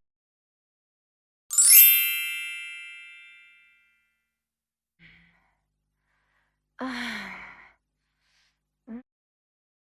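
Silly sound effects: a bright ding rings out and fades over about two seconds, then, some five seconds later, a breathy sigh whose pitch falls.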